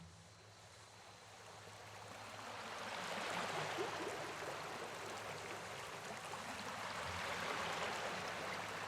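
Running water, rushing steadily after fading in over the first three seconds, with a faint low hum underneath.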